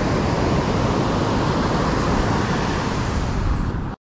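Steady rush of wind buffeting the microphone, mixed with breaking surf, cutting out suddenly near the end.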